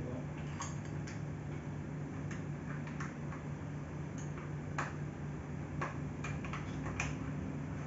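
Irregular small clicks and ticks of a screwdriver turning a screw in the plastic headrest bracket of an office chair, over a steady low hum.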